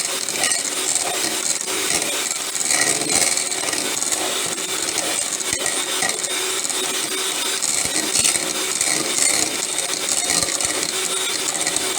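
Electric hand mixer running steadily on medium speed, its beaters whipping a firm, half-solidified mixture of coconut oil and shea butter in a deep bowl.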